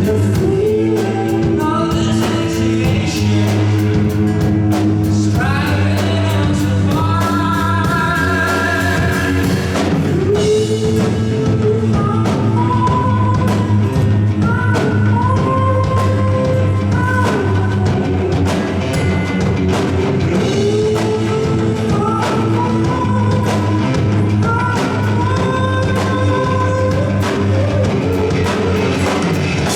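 Live rock band playing: a singer's voice over drum kit, bass and guitar, loud and continuous.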